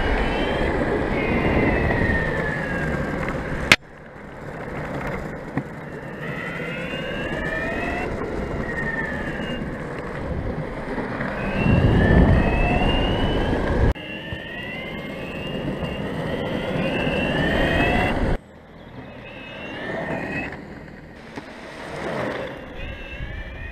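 Evolve Bamboo GT electric longboard rolling over rough asphalt. The wheels rumble, and the motors whine in pitch glides that rise and fall as the board speeds up and slows. A louder rumble of about two seconds comes near the middle, and the sound breaks off abruptly several times.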